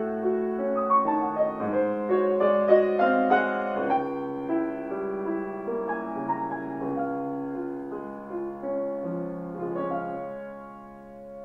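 Steinway Model B grand piano with the Spirio|r reperformance system playing back a recorded performance on its own, its keys moving without a player. The passage is slow and soft, a gentle left-hand accompaniment under the melody, and it grows quieter as the last notes die away near the end.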